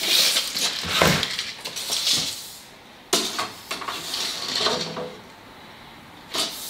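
Steel tape measure blade being drawn out and slid across a plywood panel, rattling and scraping in irregular bursts, with a sharp click about three seconds in. The tape is measuring the diagonals of a frame to check that it is square.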